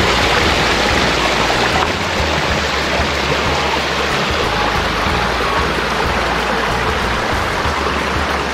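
A river rushing steadily and loudly.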